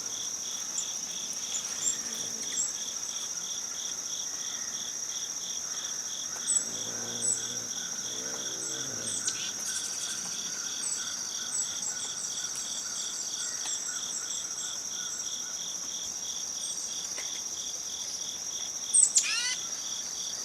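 Steady chorus of crickets and other insects: one holds a continuous high trill while another pulses evenly underneath. Short high bird chirps come and go, and a loud bird call of falling notes sounds near the end.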